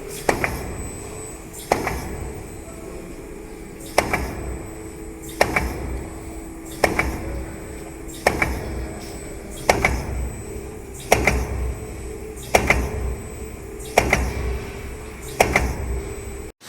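Roll-material cutting machine running in its cutting cycle: its blade comes down with a sharp chop about every one and a half seconds, over a steady motor hum.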